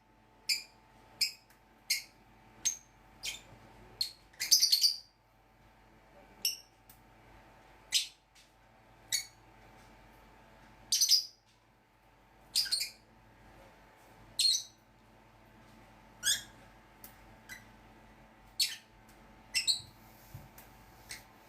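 Pet lovebirds and budgerigars chirping: short, sharp high-pitched calls, coming about every half second for the first few seconds and then more spaced out, with a louder cluster of calls about four and a half seconds in.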